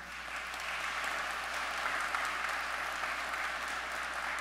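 Congregation applauding: a dense clapping that swells over the first two seconds and then holds steady.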